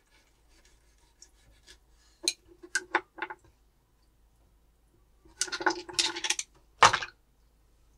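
Turban shells and utensils clinking and knocking against a dish. There are a few separate clinks about two to three seconds in, a quick flurry about five and a half seconds in, and one loud knock near the end.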